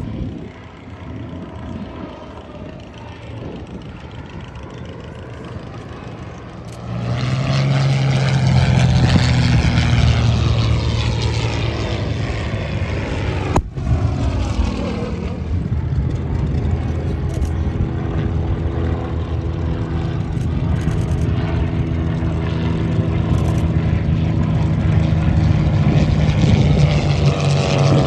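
Single-engine piston propeller aircraft flying a display. Its engine drone grows loud about seven seconds in and drops in pitch as it passes overhead, then holds a steady drone, with the pitch rising again near the end as it comes back round.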